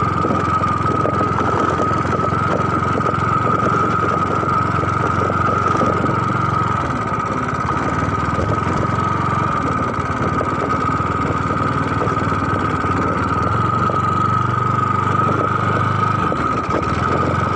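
An engine running steadily, with a steady high-pitched tone held throughout.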